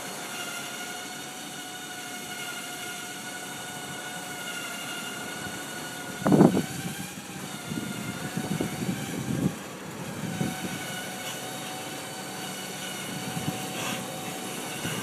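Vintage Bugatti T13 Brescia being loaded up aluminium ramps into a van, with a steady mechanical whine throughout. A loud clunk comes about six seconds in, followed by several lighter knocks.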